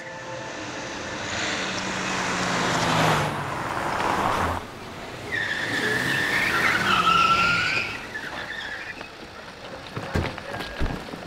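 A car driving fast, building up to a pass-by that cuts off suddenly, then tyres squealing for a few seconds as it brakes hard. A few sharp knocks follow near the end.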